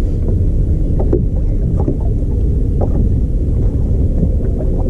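Wind buffeting the microphone on the deck of a bass boat: a steady low rumble with a faint steady hum under it, and a few light clicks.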